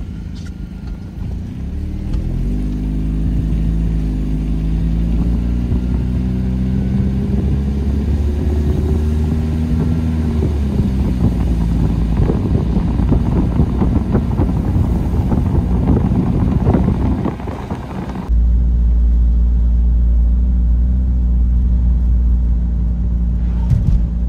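A car's engine rising in pitch as it pulls away, then running steadily, with road and wind noise. After a sudden change near the end it becomes a steady low drone of the car heard from inside the cabin.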